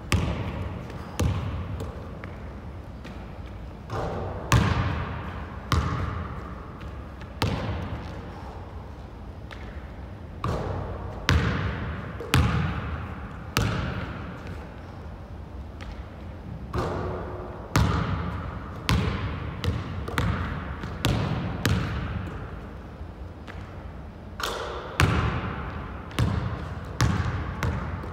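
Basketball bouncing on a hardwood gym floor: sharp single thuds about a second or so apart, each echoing briefly in the large hall.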